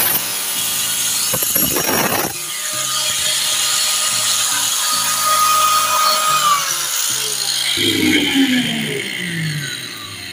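Makita angle grinder with a turbo diamond blade grinding a concrete floor for about two seconds with a rough, loud grinding noise. Then it runs free with a steady whine that falls in pitch from about six seconds in as the motor winds down after switch-off.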